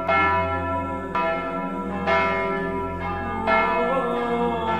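Church bells ringing: four strokes about a second apart, each tone ringing on under the next.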